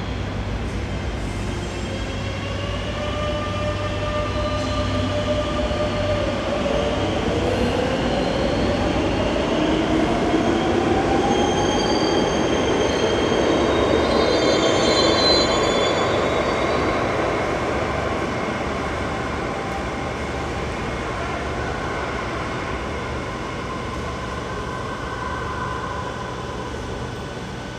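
Metro train running on another track out of sight: an electric motor whine glides upward in pitch while high wheel squeal sets in. The sound grows to a peak about halfway through, then slowly fades.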